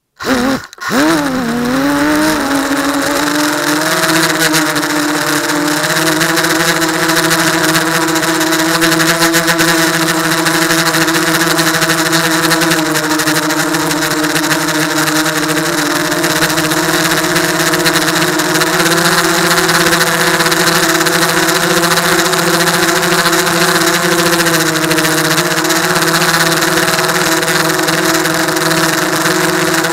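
The brushless motors and propellers of an F450 quadcopter spin up for takeoff, their pitch rising and wavering for the first second or two. They then settle into a steady, loud multi-tone whine over rushing air as the quadcopter climbs, heard from the camera mounted on it.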